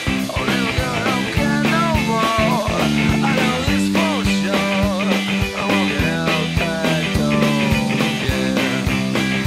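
Background rock music with a steady drum beat, held chords and a wavering melody line.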